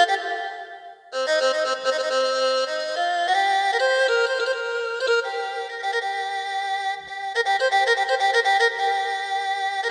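Yamaha PSR-S770 arranger keyboard playing a voice demo: a held note that fades, then from about a second in a sustained, violin-like melody over held chords, with a brief break about seven seconds in.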